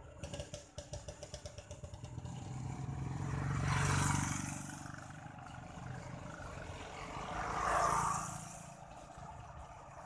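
Motor vehicles passing on a road: a rapid engine putter at first, swelling to a pass-by about four seconds in and fading, then a second vehicle passing near eight seconds.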